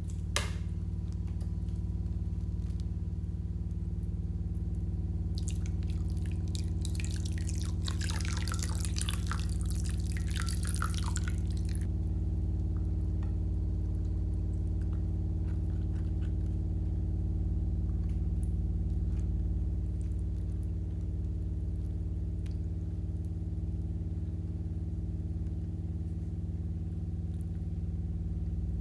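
Plastic spoon stirring wet glue slime full of foam beads in a glass bowl. It gives a run of small wet crackling squelches for several seconds near the middle, over a steady low hum.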